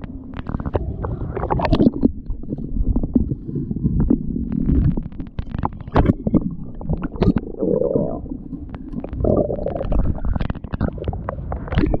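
Water sloshing around a camera housing dipped in and out of shallow water: a muffled low rumble broken by many small knocks and clicks.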